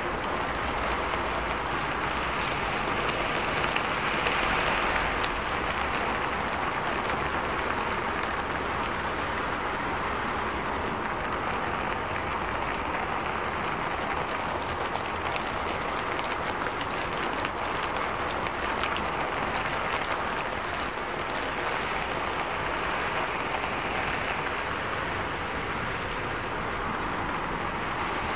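Heavy rain falling on a city street: a steady hiss with fine drop ticks, swelling slightly about four seconds in.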